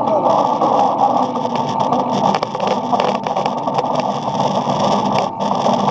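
Metal lathe running with a steady high whine from its drive, turning a small brass workpiece, with a rattle of short clicks and scraping from the cut.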